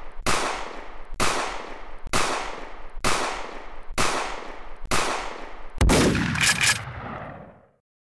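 Gunshot sound effects: single shots about one a second, each dying away before the next, seven in all. The last is a heavier, longer blast with a quick cluster of sharper cracks after it, fading out about three-quarters of the way through.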